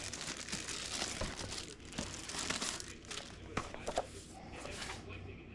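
Paper and plastic packaging crinkling and rustling as it is handled, with small irregular clicks and crackles.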